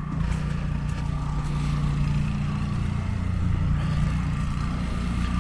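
An engine running steadily at a low, even hum, with faint street hiss above it.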